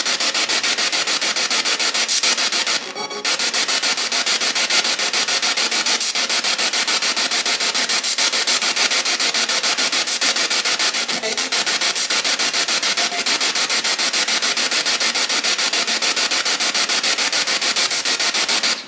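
Radio-sweep ghost box (spirit box) static played through a small JBL portable speaker: a loud, steady hiss chopped into rapid even pulses as the receiver steps through stations. There is a brief dropout about three seconds in.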